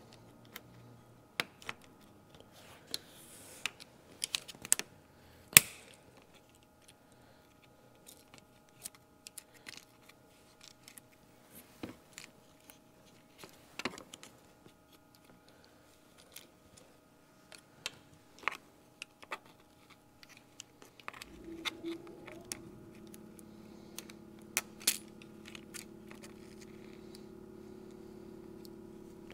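Scattered light clicks and taps of a pick working the retaining clips out of a minivan's transmission cooler line fittings at the condenser, with one sharper click about five seconds in. A steady low hum comes on about two-thirds of the way through.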